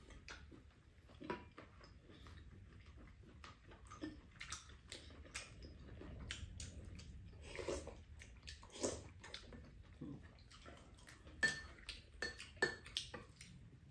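Two people eating at a table: quiet chewing and mouth sounds, with spoons and chopsticks scraping and clicking against ceramic bowls. Several sharper clinks near the end.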